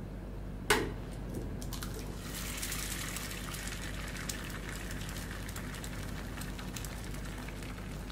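A single sharp click just under a second in, then a steady sizzling hiss with scattered crackles, as of food frying on a hot surface.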